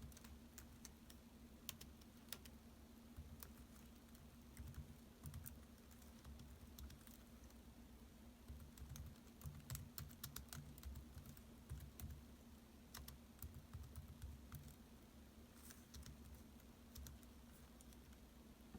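Laptop keyboard typing: soft, irregular keystroke clicks in quick runs with short pauses, over a low steady hum.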